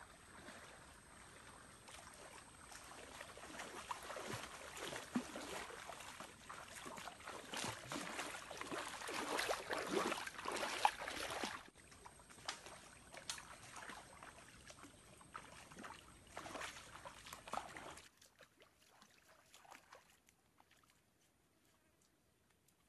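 Splashing and sloshing in a shallow stream as a person wades through the water, in irregular splashes that build up and then stop abruptly a little past halfway. Fainter scattered splashes follow, then near silence near the end.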